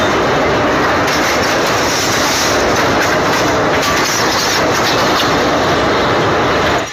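Fast floodwater rushing and churning: a loud, steady wash of noise with no pauses.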